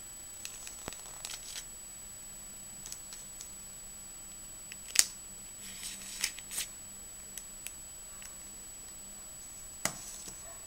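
Handling noise from a mobile phone: scattered small clicks, taps and rubbing as it is picked up, turned over and set back down on a table, with one sharp click about five seconds in and another near the end.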